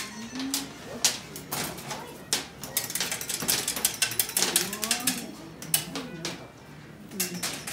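Hard candy being cut into pieces at the work table: a quick, irregular run of sharp clicks and snaps.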